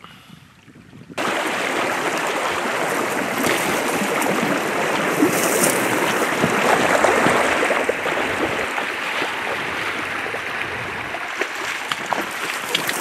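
River water rushing steadily, cutting in abruptly about a second in.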